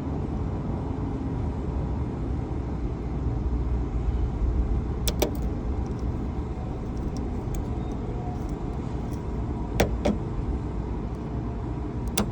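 Steady low rumble of a running vehicle, with three sharp clicks spread through it, typical of a lock-picking tool being worked in a lock.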